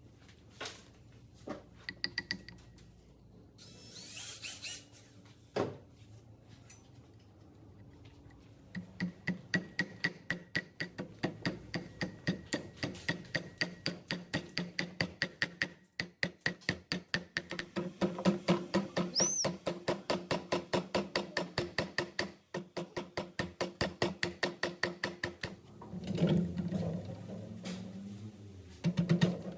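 Rapid, regular knocking or tapping, about four knocks a second, that starts about nine seconds in and stops near the end, after a few scattered knocks at the start.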